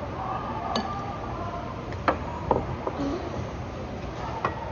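Disposable utensils clinking against bowls during a meal, with about four sharp clinks, the loudest about two seconds in, over the steady murmur of a busy dining hall with faint voices.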